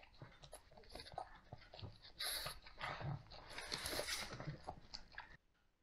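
Pug puppy chewing and sucking on the soft ear of a toy: wet smacking and clicking, with louder snuffling at about two and four seconds in. The sound cuts off suddenly near the end.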